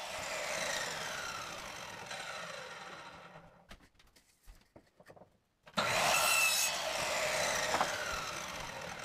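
Plywood planks scraping and rubbing against wood as they are handled and laid in place. It comes in two stretches, each fading away over a few seconds, with a short quiet gap between them.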